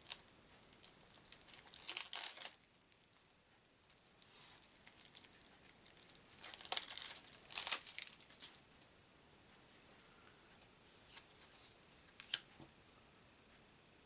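Wrapping on a deck of UNO cards being torn open and crinkled in short bursts, with one sharp click about twelve seconds in.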